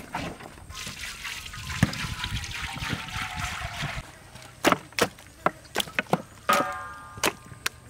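Cooking oil poured from a plastic jug into a large wok, a steady stream with a slowly falling tone. About four seconds in it gives way to a run of sharp knocks and one short ringing metallic clang as whole raw chickens are piled onto a metal tray.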